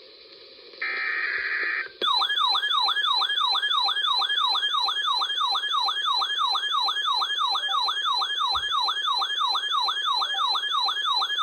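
Emergency Alert System SAME header: the last burst of buzzy digital data tones, then about two seconds in a siren-like attention tone that sweeps up and down about three times a second.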